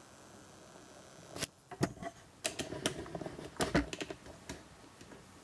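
A quick, irregular run of light clicks and knocks, like small hard objects being handled, over quiet room tone.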